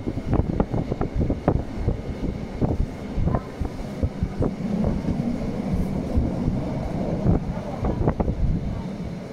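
Train on the Bernina Railway running along the valley floor, heard from inside the carriage: a steady low rumble with many irregular clacks and knocks from the wheels on the track, and some wind.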